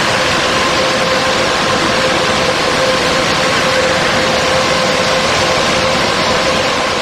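Belanger InstaKleen automatic car wash running: a loud, steady rushing noise with a constant hum from its motors.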